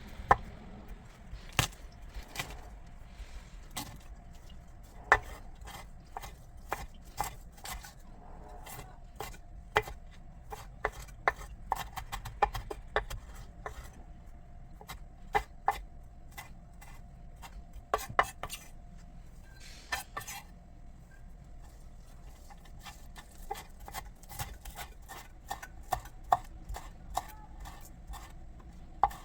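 Knife knocking on a cutting board in irregular taps and short clusters of chops, with light clatter of kitchen utensils.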